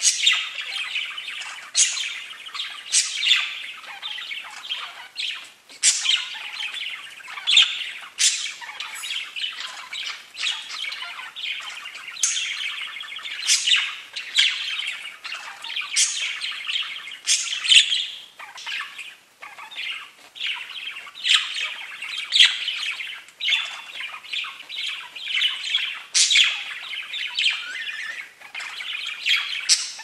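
Pet budgerigars chattering and warbling without pause: a dense stream of scratchy chatter, dotted with frequent short, high chirps.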